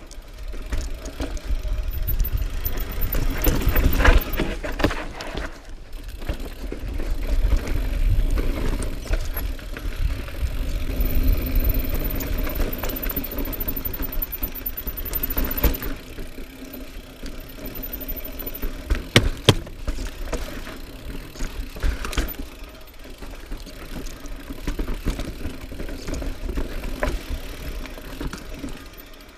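2018 Norco Range full-suspension mountain bike descending rocky slickrock: tyres rumbling over stone and the bike rattling and clattering, with a few sharp knocks over ledges, the clearest a little past the middle. A low rushing of wind on the microphone runs under it.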